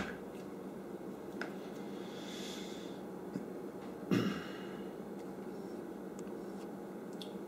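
Low, steady room noise with a constant hum. There is a faint click about a second and a half in and a short soft knock about four seconds in.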